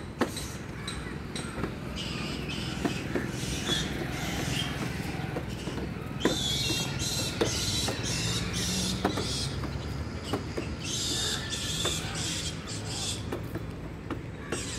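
Plastic wheels of a toddler's ride-on tricycle rolling over brick paving: a steady rumble with irregular clicks and knocks, and creaking and squeaking in stretches about halfway through and near the end.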